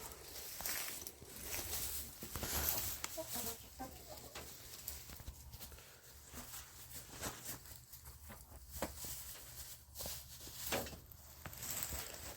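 Backyard hens scratching and rustling through fresh straw, a steady run of short crackles, with a few soft clucks about three seconds in.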